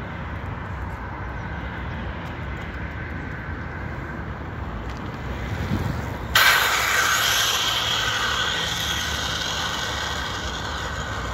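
A bicycle's tyre skidding across asphalt in a drift slide. A sudden loud hissing scrub starts about six seconds in and fades slowly over several seconds, after a quieter stretch of low outdoor rumble.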